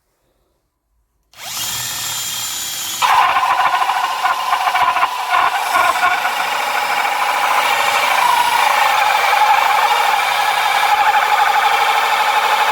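Cordless power drill starting up a little over a second in and spinning steadily. About three seconds in, the bit bites into the wood and the drill runs louder as it bores the entrance hole in the wooden nest box.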